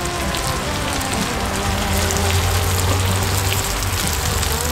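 Thin-sliced pork belly stir-fry sizzling steadily in a large hot pan as it is carried off the fire, with background music underneath.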